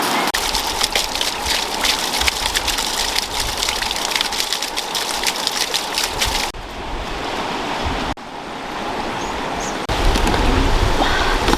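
Steady rushing noise like rain or running water, dense with fine crackling clicks, changing abruptly about six and a half, eight and ten seconds in, the last stretch with a heavy low rumble.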